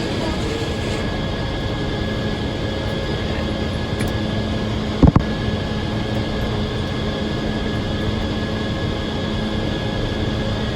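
Circular sawmill machinery running steadily, with one sharp knock about halfway through.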